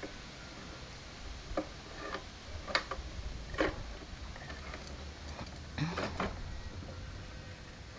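Scattered light clicks and knocks of plastic on plastic, a small toy shovel tapping and scraping in the bed of a plastic toy dump truck, about half a dozen taps with pauses between.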